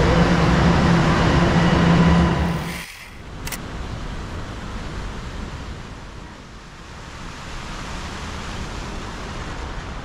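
A subway train running alongside the platform: a loud rumble with a steady motor hum. It cuts off suddenly about three seconds in, giving way to a quieter, steady outdoor city hiss.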